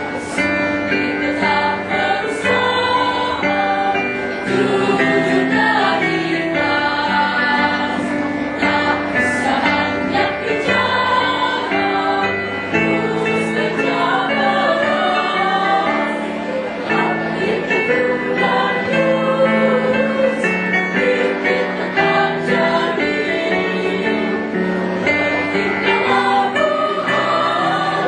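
A choir singing a song in parts, with several voices holding notes together as chords that change every second or so.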